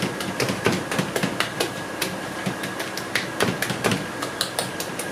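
Irregular clicks and light knocks, several a second, as a hand pats and presses soft khoya into a steel tray that shifts against a steel counter, over a faint steady whine.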